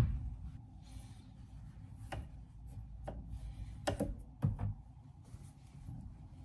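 Plastic clothes hangers clicking and knocking on a closet rail as tops are taken down and handled: a few sharp clicks, the loudest ones about four to four and a half seconds in.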